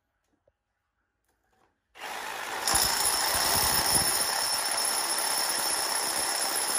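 Handheld power tool running against the ceiling cornice, a steady motor sound with a high whine. It starts about two seconds in, grows louder a moment later, and cuts off suddenly near the end.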